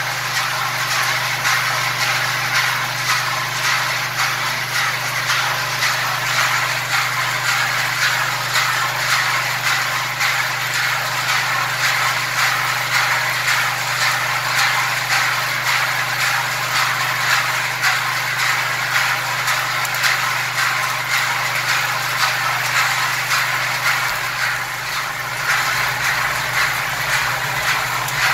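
Rotary drum nut-roasting machine running: its drive motor hums steadily while a load of nuts tumbles and rattles continuously against the turning drum and its guide vanes. Near the end a deeper rumble joins in.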